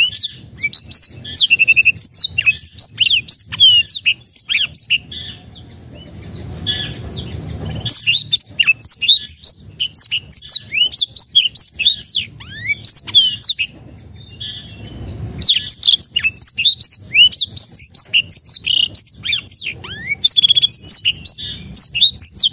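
A black-throated canary (blackthroat) singing a fast, varied song of rapid chirps, trills and whistled up-and-down slurs. The song breaks off twice, about a quarter of the way in and again past the middle, then resumes.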